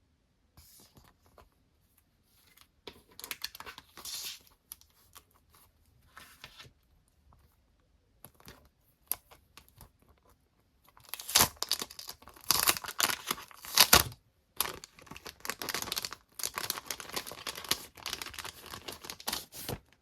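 Parcel packaging being torn open and crinkled by hand: irregular tearing and rustling, sparse at first, then dense and loud through the second half.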